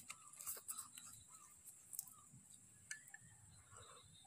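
Near silence, with faint scattered ticks and small mouth sounds of someone eating from a ceramic bowl with chopsticks.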